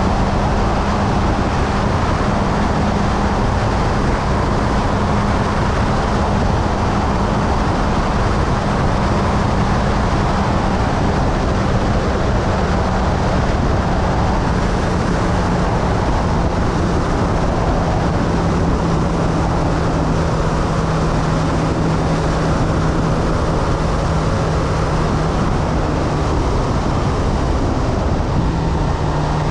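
Motorcycle engine running steadily at cruising speed under a heavy rush of wind and road noise on the camera microphone. Its low note holds steady, dipping slightly in pitch a few times.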